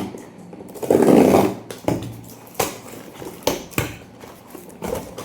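Packaging being handled during an unboxing: a brief loud rustle about a second in, then several separate sharp clicks and knocks as items are moved and set down.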